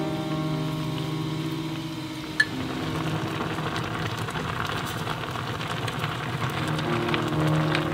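Clam and tofu stew bubbling at a rolling boil in an earthenware pot, a dense crackling patter of bursting bubbles, with one sharp click about two and a half seconds in. Soft background music fades out early and comes back near the end.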